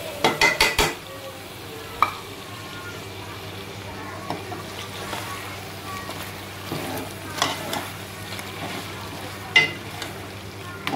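Chicken and chopped tomatoes sizzling in a metal karahi while a steel ladle stirs them. The ladle knocks quickly against the pot four times in the first second, once more about two seconds in, and then scrapes now and then over the steady sizzle.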